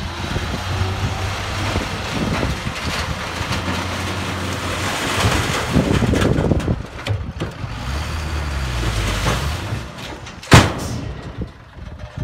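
Hyundai 5-ton dump truck's diesel engine running while the hydraulic hoist tips the bed, with sand and soil sliding out of the raised body. Near the end comes a single sharp bang, the loudest sound.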